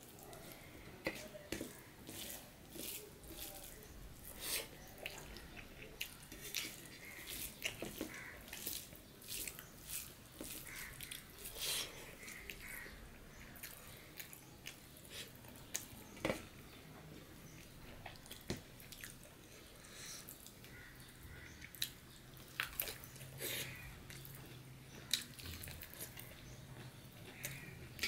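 Close-up eating sounds of a person chewing rice and curry eaten by hand: irregular chewing with many short clicks and smacks of the mouth.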